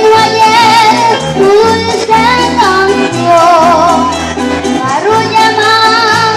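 A girl singing a Venezuelan llanera song with wide vibrato, over a band with plucked strings and a bass changing notes about every half second, in entreverado (joropo) rhythm.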